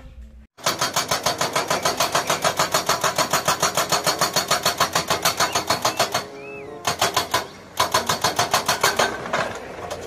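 Hydraulic rock breaker on a Komatsu excavator hammering on stone, a fast steady run of blows about seven a second. It stops briefly twice, once around the middle and again a little later.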